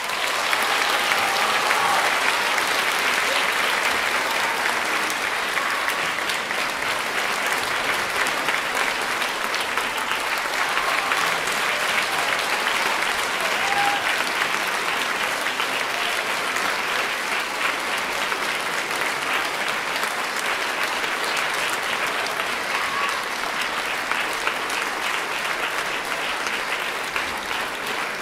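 Audience in a concert hall applauding steadily after the orchestra's final chord dies away.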